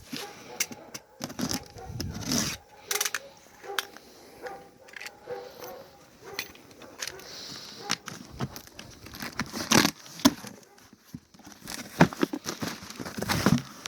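Cardboard boxes and plastic food bags being handled and unpacked: irregular rustling and crinkling, with tearing and the knocks of items being set down.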